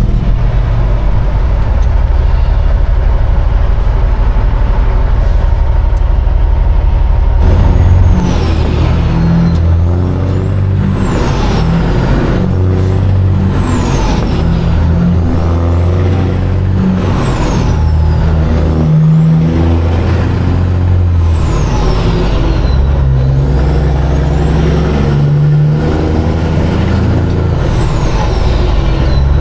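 Caterpillar-powered Peterbilt's straight-piped diesel engine running steadily at first, then pulling from about eight seconds in as the truck works up through the gears of its 18-speed manual: the engine note climbs and drops back with each shift, five or so times. A high whistle rises and falls along with each pull.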